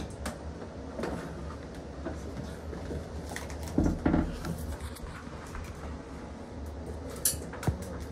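Scattered knocks and clicks of bed parts being handled and fitted during assembly, with a pair of sharper knocks about four seconds in and two more near the end, over a low steady hum.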